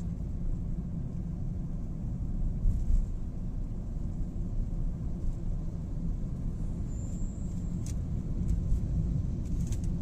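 Steady low road and engine rumble heard inside a car's cabin while it cruises along an expressway.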